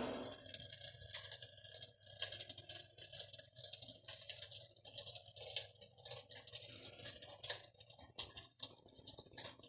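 Electric fireplace hearth running: faint, irregular crackling clicks over a low steady hum.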